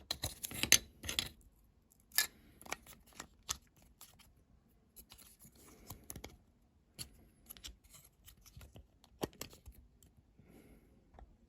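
Small model parts being handled and fitted: sharp light clicks and taps as the seat unit of a diecast model car is worked into its body, several together in the first second or so, then single clicks spread through the rest.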